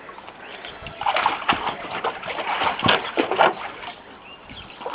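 Water splashing and sloshing in a shallow inflatable paddling pool as an Old English Sheepdog wades and plunges her head under. The splashes come in irregular bursts, busiest from about one to three and a half seconds in.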